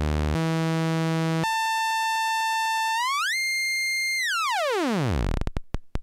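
Modulation oscillator of a Roman Filippov 208r (Buchla Easel clone), set to a sawtooth and running in the audio range as a buzzy tone. It jumps up in pitch twice as its range modes are stepped through, glides up and holds, then falls steeply until it breaks into separate clicks near the end.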